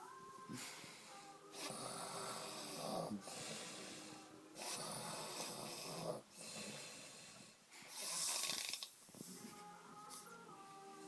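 A man passed out drunk, snoring: three loud snores roughly three seconds apart, with quieter breaths between them.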